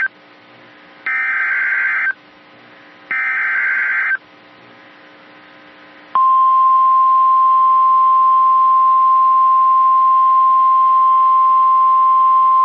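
NOAA Weather Radio Emergency Alert System SAME header: two one-second bursts of warbling digital data about a second apart. About 6 seconds in, the steady 1050 Hz warning alarm tone starts and holds, marking the start of a new National Weather Service warning.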